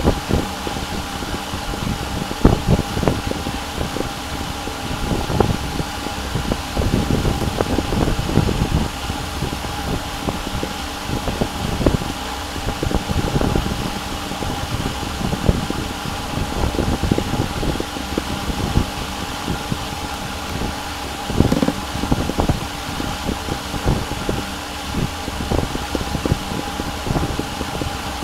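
Steady hum of a computer's cooling fan, with a faint steady whine in it, under scattered soft low knocks and clicks at irregular intervals.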